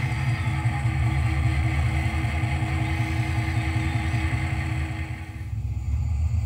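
HO scale model EMD SD45 and SD40 diesel locomotives running, a steady low engine rumble with higher track and motor noise over it. The higher noise drops away about five and a half seconds in, leaving the low rumble.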